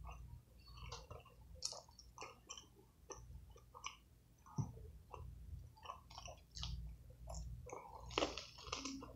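A person chewing a mouthful of chicken burger close to the microphone: faint, irregular wet clicks and smacks. Near the end he bites into the burger again, and this is the loudest sound.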